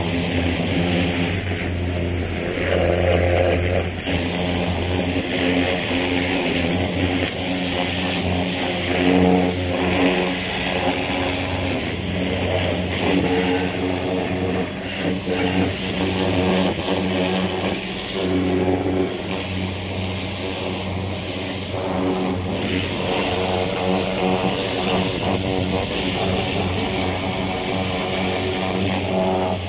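Greenworks 1700 PSI electric pressure washer running steadily: its motor and pump hum, with a steady high whine, while the spray from the wand hits the mower deck.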